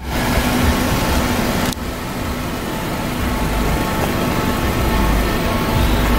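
Car engine idling steadily, with wind rumbling on the microphone; the sound breaks off briefly about two seconds in, then carries on.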